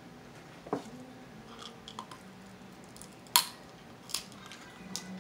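Cooked Dungeness crab shell being cracked and picked apart by hand: a scatter of sharp cracks and clicks, the loudest about three and a half seconds in, with some chewing.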